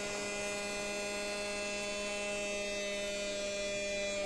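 Battery-powered toy vacuum cleaner running: its small motor gives a steady, even hum.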